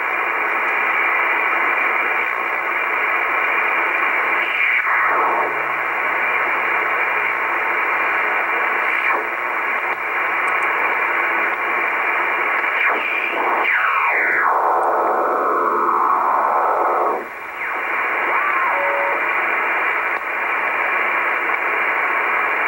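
Shortwave receiver in upper-sideband mode giving a steady band-limited hiss of static as it is tuned across the 11 MHz band. About two-thirds of the way in, whistling tones slide down in pitch as the dial passes signals, and the hiss drops out briefly just after.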